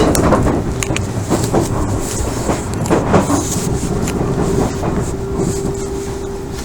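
Odakyu 1000 series electric train with Mitsubishi GTO inverter drive running, heard from inside the car: wheels clack over rail joints several times over a steady rumble and a steady hum.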